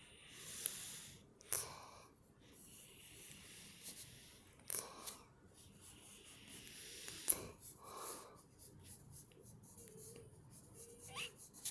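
Heavy breathing close to the microphone, several slow hissing breaths, mixed with the light scratching and tapping of drawing strokes.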